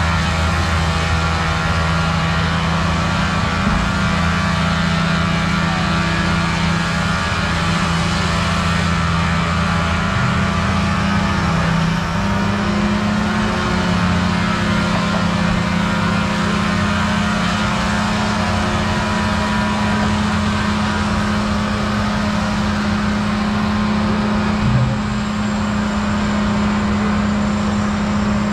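Heavy diesel logging machinery running steadily at a loud, even level. The engine note shifts slightly higher about twelve seconds in.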